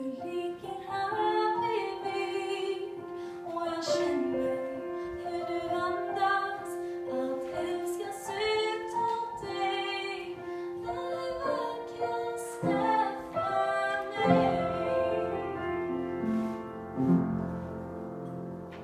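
A woman singing a slow song into a microphone, accompanied by an upright piano. Her singing ends a little past the middle, and the piano plays a closing passage alone.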